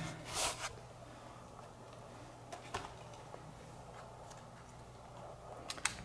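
Quiet room tone with a faint steady low hum. A short breathy rustle comes about half a second in, and a few faint clicks follow, two of them close together near the end.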